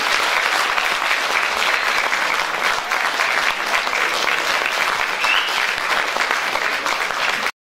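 Audience applauding, a dense steady clapping that cuts off abruptly near the end.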